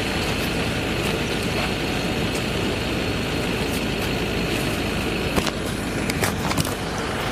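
Steady low rumble and hiss like idling vehicle engines, with a few sharp clicks and knocks in the last two seconds.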